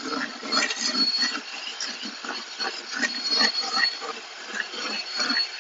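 Electric hand mixer running in a stainless steel bowl of buttercream, with a steady thin whine and irregular clicks of the beaters against the bowl, as the cream is beaten to emulsify it.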